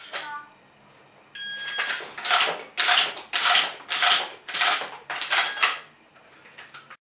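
A short electronic beep, then a rapid run of clacks for about four seconds as shotgun shells are pushed one after another into the tube magazine of a Benelli Supernova pump shotgun.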